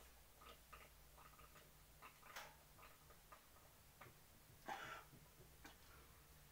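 Faint, irregular gulping and glugging of cider being chugged from an upturned bottle, heard as quiet scattered ticks, with two short louder rushes of noise about two and a half and five seconds in.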